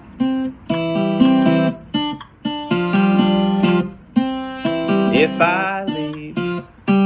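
Guitar strumming chords, each chord starting sharply and ringing before a short break. Just after five seconds in, notes glide upward in a slide.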